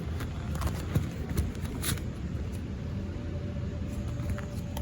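Steady low rumble with scattered light clicks and rustles, and a faint steady hum coming in about halfway through.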